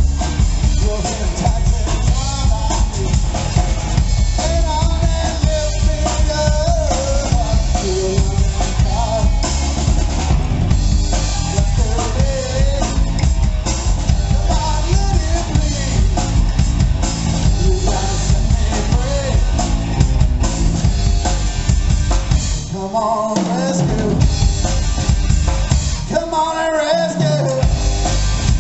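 Live three-piece rock band playing: drum kit, electric bass and electric guitar, with a wandering melodic line on top and no vocals transcribed. The bass and kick drum drop out briefly twice near the end.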